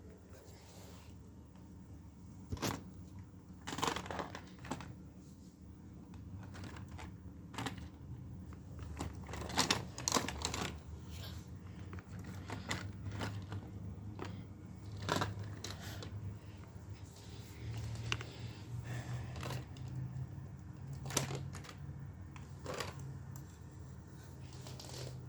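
Plastic Lego pieces being handled, with irregular sharp clicks and rattles as the parts knock and press against each other, over a low steady hum.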